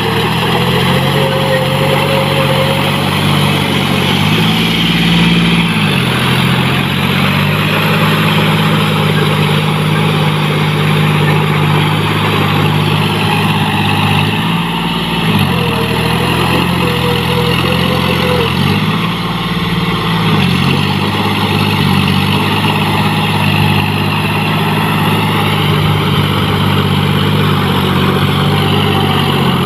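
John Deere 5045D tractor's three-cylinder diesel engine running under heavy load as it pulls cage wheels through deep paddy mud. Its pitch sags and recovers three times: around four seconds in, near the middle, and about two-thirds of the way through.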